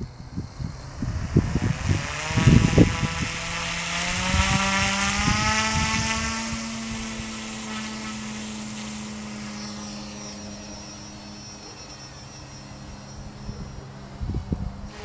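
Goosky Legend S1 electric RC 3D helicopter spooling up: the motor and rotor whine rises steadily in pitch over a few seconds, then settles into a steady hum at flying speed that slowly fades as the helicopter lifts off and climbs away. Low thumps come in the first few seconds before the spool-up.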